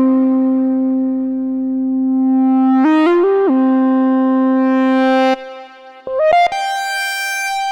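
Moog Subsequent 25 analog synthesizer playing a bright lead line, one note at a time: a long held low note, a quick run of a few notes about three seconds in, then the low note again, its tone brightening before it cuts off. A few short notes follow, leading into a high held note near the end.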